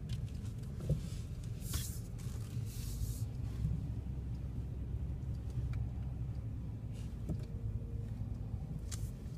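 Car cabin noise while driving slowly: a steady low engine and road rumble, with a few faint clicks and a brief high hiss about two to three seconds in.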